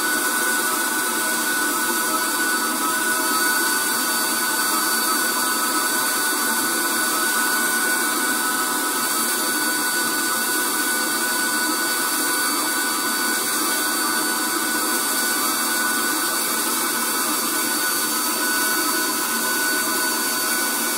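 Spray tan machine's turbine running steadily, blowing tanning solution through a handheld spray gun: a constant whirring hiss with a few held whining tones.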